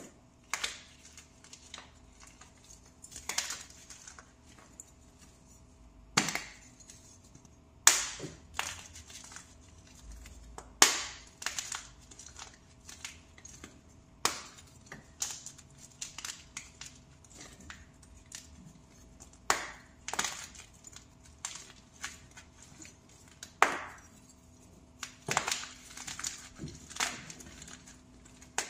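Fresh pressed powder blocks crushed by hand: sharp, crisp crunches every second or two, with softer crumbling between them and a quick flurry of crunches near the end.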